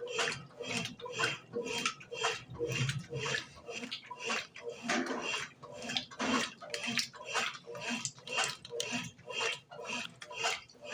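Brastemp BWG11 11 kg washing machine agitating on its bed-and-bath cycle: water and laundry sloshing in rhythmic strokes, about two a second.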